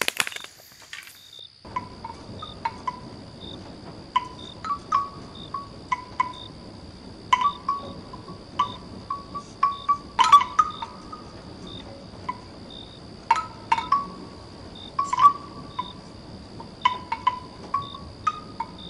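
A few sharp clicks, then from about two seconds in night insects keep up a steady high chirring drone. Over it, sparse bell-like chime notes ring out irregularly, sometimes two or three in quick succession.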